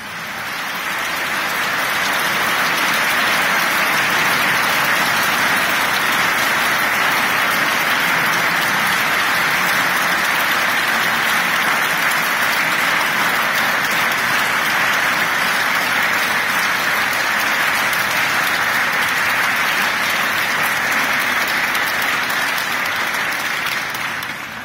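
A large congregation applauding in a church. The clapping swells over the first couple of seconds, holds steady, and dies away near the end.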